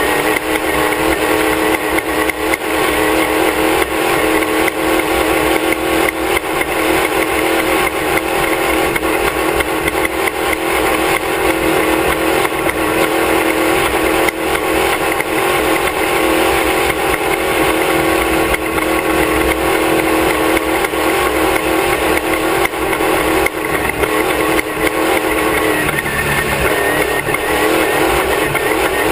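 Class 1 off-road race car's engine running hard at race speed, heard up close from the back of the car, a loud steady engine note with constant small knocks and rattles from the rough ground. The engine note changes briefly near the end.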